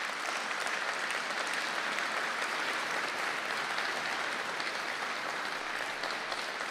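A large audience applauding steadily, a dense patter of many hands clapping that eases off slightly near the end.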